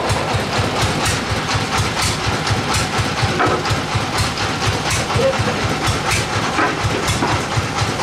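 Sawmill engine running steadily at idle, with a fast, even low pulsing beat.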